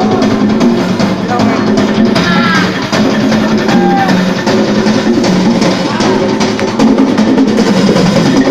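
Live percussion ensemble drumming, many drums struck together in a dense, loud rhythm.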